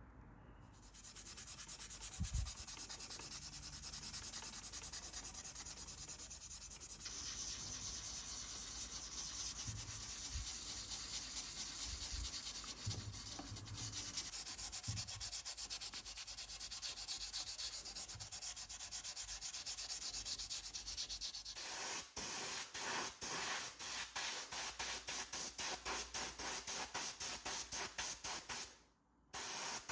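Sandpaper being rubbed by hand over a small model car part, a steady scratchy rubbing. About 21 seconds in it gives way to a louder hiss that pulses several times a second, like an aerosol spray can, with a brief break near the end.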